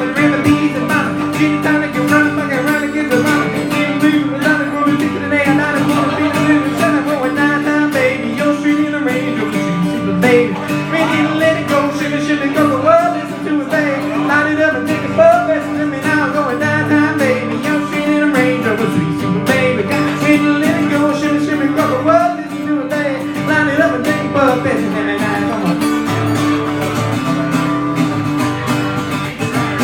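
Acoustic guitar song played live, with a voice singing over it.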